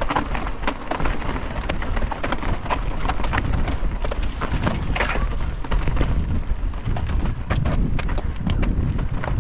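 Mountain bike descending over granite rock slabs: tyres and frame knocking and rattling in a fast, irregular clatter of impacts over a constant low rumble.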